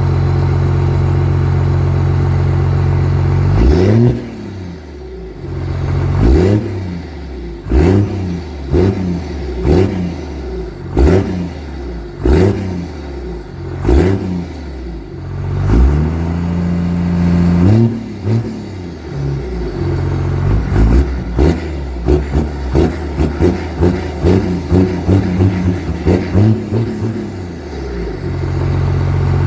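12-valve Cummins 5.9 L inline-six turbo diesel idling, then free-revved in a series of throttle blips about every second or two. One longer rev is held partway through, then a fast run of short blips follows before it settles back to idle near the end.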